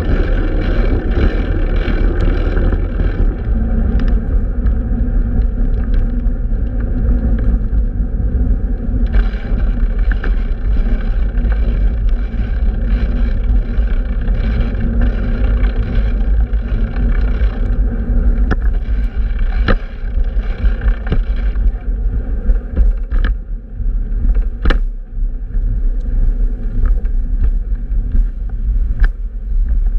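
Steady low road rumble and street traffic heard while riding a fixed-gear bicycle through city streets, with a few sharp knocks in the second half.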